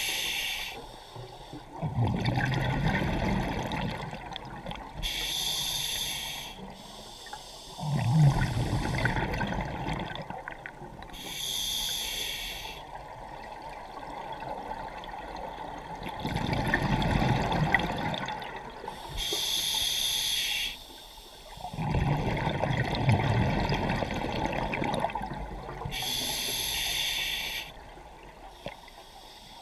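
Scuba diver breathing through a regulator, about five slow breaths: each is a hissing inhale followed a moment later by a lower rush of exhaled bubbles.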